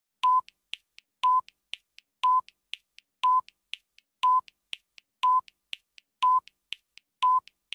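Electronic beep at one steady pitch, repeating exactly once a second, each beep starting with a sharp click, with two or three faint ticks between beeps: a steady, clock-like beep-and-tick sound effect.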